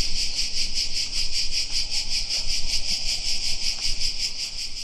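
A chorus of insects: a steady, high-pitched buzz pulsing about ten times a second, with a faint low rumble beneath it.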